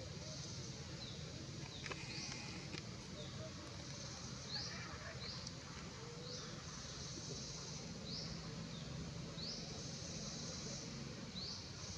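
Insects buzzing in a high, pulsing chorus. Each pulse swells in with a rising sweep and then holds, repeating about every second or two.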